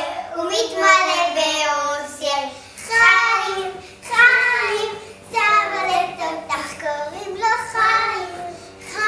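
Children singing a song together in short phrases, with brief pauses between them.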